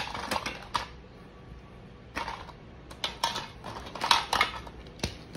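Toy kitchen pieces being handled: irregular light clicks and short clatters, a few at a time.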